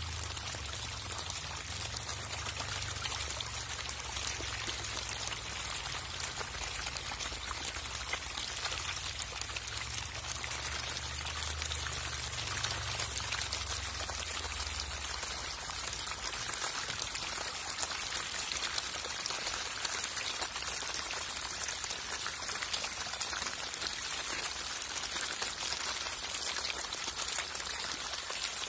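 A dense mass of hybrid magur catfish thrashing and gulping feed pellets at the water surface: continuous splashing and crackling of churned water. A low rumble runs underneath for about the first half and then stops.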